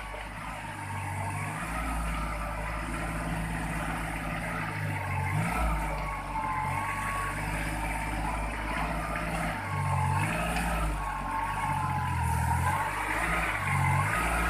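Engine of a machine lifting oil palm fruit bunches, running and changing note again and again as its load varies, with a wavering whine above it.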